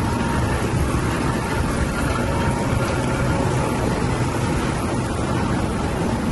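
Oil mill machinery running: oil expellers making a loud, steady, unbroken din.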